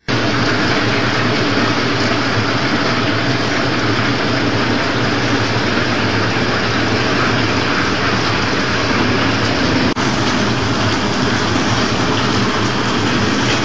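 Candy pillow-type packaging line running: a steady mechanical noise with a low hum from the vibratory bowl feeder, feed conveyor and flow-wrapping machine.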